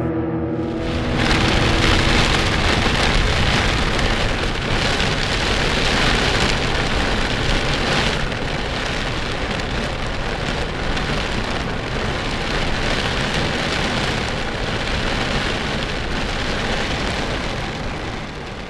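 Heavy thunderstorm rain, blown sideways by strong wind, as a steady dense hiss that fades out near the end.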